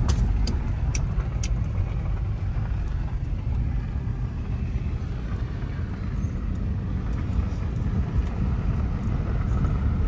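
Steady low rumble of a car's tyres and engine on a gravel road, heard from inside the cabin, with a few light clicks in the first second and a half.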